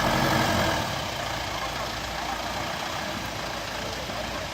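Motor vehicle engine running with steady road noise, louder for about the first second.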